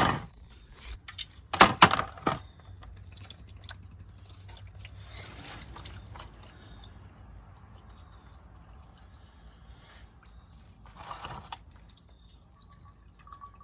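Old engine oil pouring from the sump into a drain pan, a faint steady trickle. A few loud knocks come about two seconds in.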